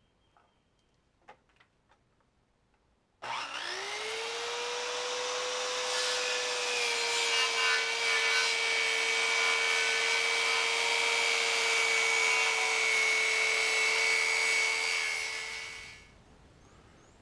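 Handheld circular saw spinning up with a rising whine about three seconds in, then cutting through the end of a wooden fence board, its pitch dropping slightly under load. It runs down and stops near the end.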